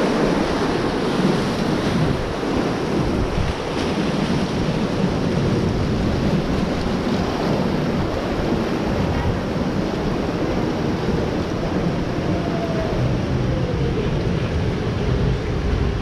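Steady rush of churning water in a river-rapids ride channel around the raft, with wind buffeting the action camera's microphone.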